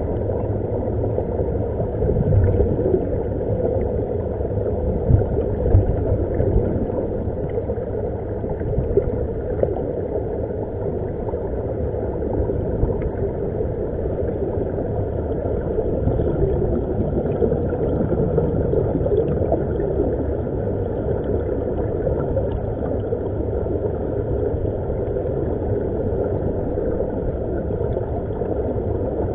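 Muffled, steady underwater rumble of air bubbling out of surface-fed SeaVenture diving helmets, heard through a waterproof camera housing, with a few louder bumps a couple of seconds in.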